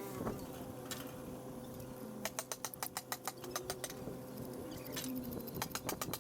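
Ratchet wrench clicking in quick runs of about eight clicks a second, loosening the cylinder head bolts on an engine being torn down; one run about two seconds in and a shorter one near the end.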